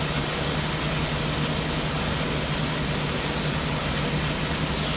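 Steak tips sizzling steadily in a foil-covered frying pan on the stove, with a low steady hum underneath.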